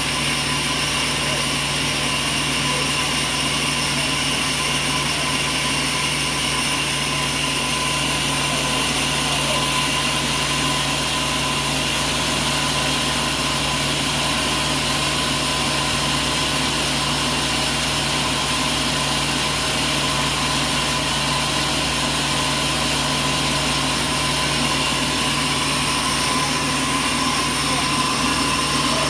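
Sawmill machinery running steadily: a constant mechanical drone with several unchanging tones over a noisy hiss, without pauses or the rise and fall of a blade entering a cut.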